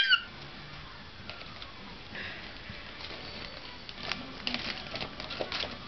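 A golden retriever nosing into a small plastic bag of mini marshmallows, with sniffing, plastic crinkling and small chewing clicks that grow busier from about four seconds in. A child's short squeal cuts off at the very start.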